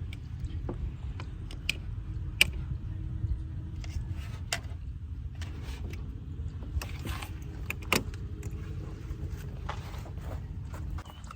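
Scattered sharp clicks and knocks over a steady low rumble, the loudest knocks about two seconds in and near eight seconds in.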